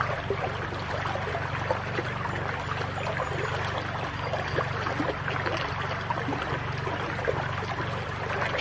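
Shallow creek water running and burbling over stones and gravel, a steady splashing trickle with many small crackles, with a low steady hum underneath.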